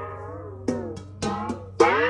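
Darbuka played by hand: four quick strokes in an uneven pattern. Each rings on with a tone that wavers in pitch, and the last is the loudest.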